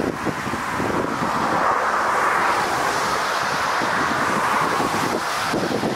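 Jet engines of a wide-body airliner on short final just above the runway, a steady rushing noise that swells in the middle, with wind buffeting the microphone.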